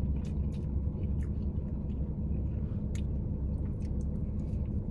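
A person chewing a mouthful of pepperoni pizza, with small wet mouth clicks scattered through, over a steady low hum.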